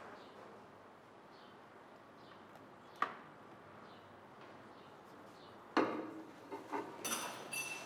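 Quiet café room tone with faint short high chirps about once a second, a single sharp click about three seconds in, then a run of knocks and clatter near the end.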